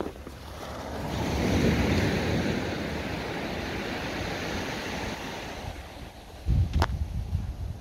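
Small waves breaking and washing up a sandy shore, the surf hiss swelling about a second in and then settling. Near the end, wind buffets the microphone with a low rumble, and there is a single short click.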